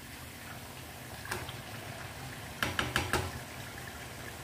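Ribbon pakoda deep-frying in hot oil in a metal kadai, a steady bubbling hiss. A steel slotted spoon clinks against the pan once about a second in, then four or five quick times around three seconds in.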